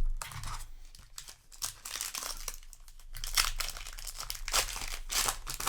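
Crinkling of a foil booster-pack wrapper being handled, in a series of irregular rustling bursts that grow busier about two seconds in.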